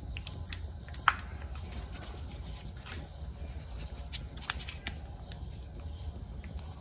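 Wooden spoon scraping butter out of its wrapper over a pan: scattered light clicks and rustles over a faint steady low hum.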